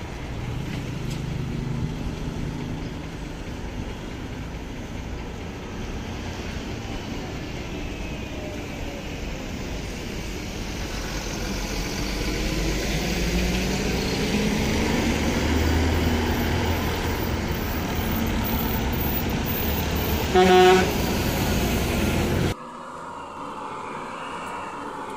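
A bus engine running and drawing nearer, growing steadily louder, with one short loud horn blast about twenty seconds in. The engine noise cuts off suddenly near the end, leaving a quieter background.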